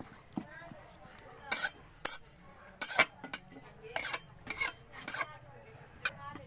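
A flat metal spatula scraping and knocking against an iron kadai in a series of sharp, unevenly spaced strokes, about nine in all.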